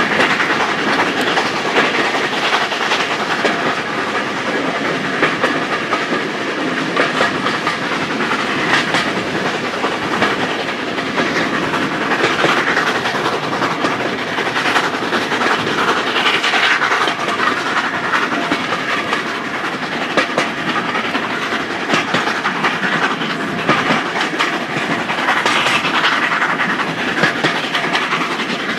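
Hunslet 0-6-0 saddle-tank steam locomotive working hard up a steep bank, heard from a carriage window, with the carriage wheels clattering over the rail joints. The sound holds at a steady level throughout.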